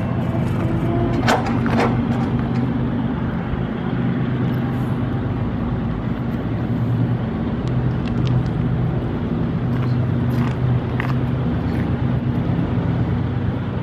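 An engine running steadily close by, a low even hum with no change in speed, with a couple of sharp knocks about a second and a half in. A steady higher tone cuts off about half a second in.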